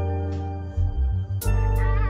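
Background music: held chords over a deep bass, changing to a new chord about one and a half seconds in, where a light ticking beat comes in.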